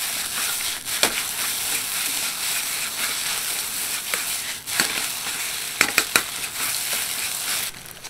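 Egg fried rice sizzling steadily in a wok as it is stir-fried with a ladle, the ladle scraping through the rice and clacking sharply against the wok about a second in and a few times around five to six seconds. The sizzle drops away near the end.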